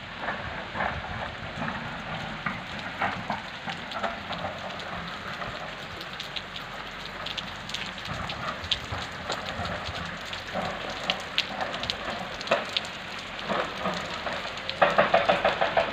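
Steady rain falling, with many small ticks of raindrops striking the wet camera. About a second before the end a louder, regularly pulsing sound starts up.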